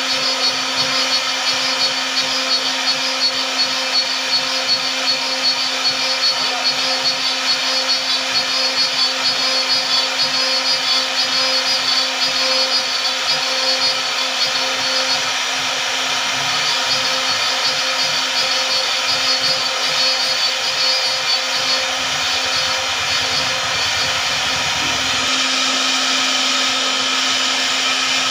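Steady whirring of a running electric motor, with a constant low hum and a high whine that stays level throughout.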